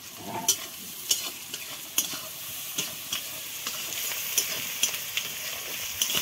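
Sliced onions sizzling in hot oil in a metal kadhai, with a metal spatula scraping and clicking against the pan roughly twice a second as they are stirred.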